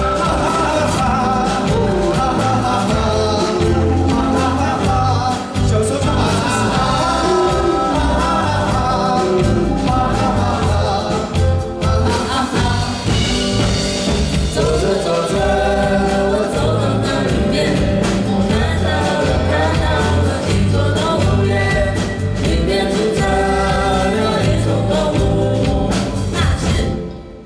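A band playing a song with sung vocals over a steady bass and drum beat; the music stops abruptly near the end.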